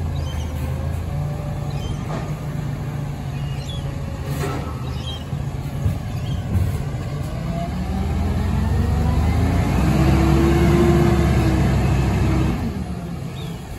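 Garbage truck engine running at idle, then revving up with a rising tone about eight seconds in as the truck pulls away, dropping back about a second before the end. A few light knocks around the middle.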